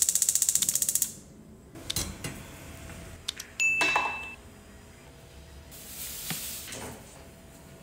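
Gas stove's electric igniter clicking rapidly for about a second. Then scattered light clicks and clatter, a short bright ding about three and a half seconds in, and a brief rustle near the end.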